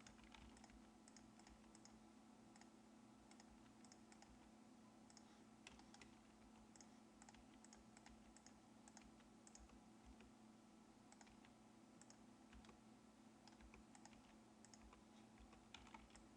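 Faint, irregular clicking of a computer mouse and keyboard over a steady low hum.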